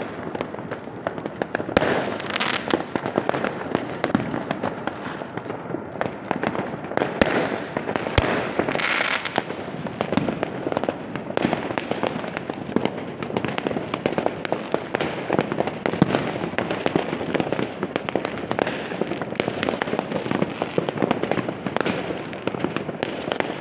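Fireworks and firecrackers going off continuously all around: a dense, unbroken crackle of bangs near and far, with sharper single reports standing out every so often and brighter crackling flurries a couple of seconds in and again near the ninth second.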